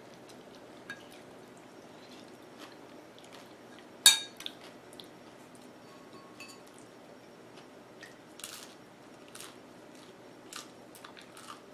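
A metal spoon clinks once against a ceramic bowl about four seconds in, a short ringing clink. Around it, faint chewing and small mouth clicks over a low room hiss.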